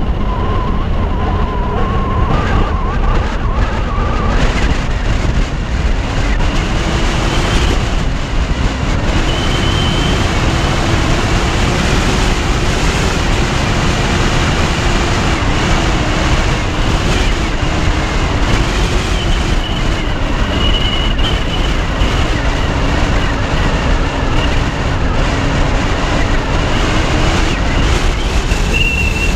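Car driving, heard from a microphone on its roof: steady road and wind noise with faint whining tones that drift slowly up and down.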